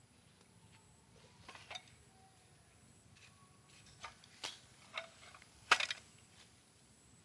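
Handling noise: a few scattered sharp clicks and knocks of objects being moved, the loudest a short cluster about six seconds in.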